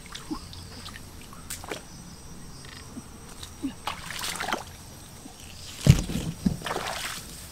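Splashing and sloshing of shallow muddy stream water as a person wades and snatches at a snake with bare hands, with a sudden loud splash about six seconds in.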